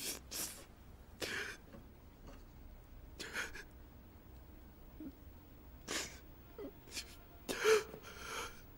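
A man crying: a series of short, sharp breaths and sniffs, the loudest a brief voiced sob near the end.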